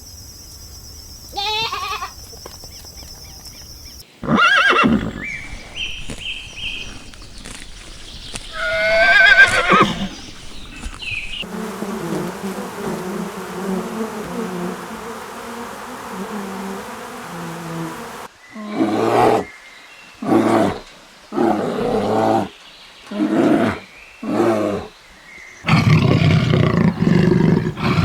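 A run of different animal calls, one clip after another. Pitched calls come first, then a steady low call, then a string of about six evenly spaced calls a little over a second apart, and a loud call starts near the end.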